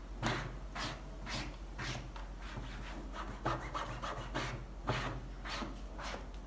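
A hand-held cloth rubbed briskly back and forth over the fabric seat of an upholstered dining chair, about two scrubbing strokes a second, wiping off marks.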